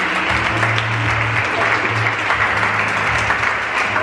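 A large audience applauding steadily, with music and a low bass line playing underneath.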